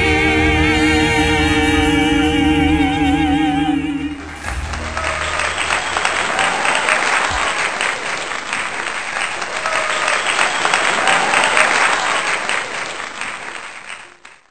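Vocal trio holding a final chord with wide vibrato over a jazz band, ending about four seconds in. Audience applause follows and fades out near the end.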